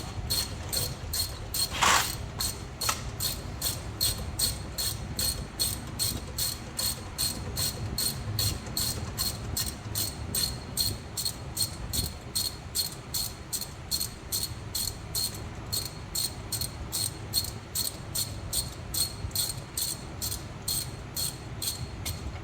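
Ratchet wrench with a 9 mm hex bit clicking steadily, about three clicks a second, as a brake caliper bolt is backed out. One louder metallic click comes about two seconds in.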